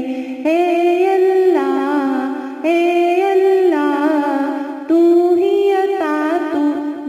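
A solo woman's voice singing a hamd, a devotional song to God, with no instrument heard. It goes in three long, ornamented phrases, each starting about two seconds after the last.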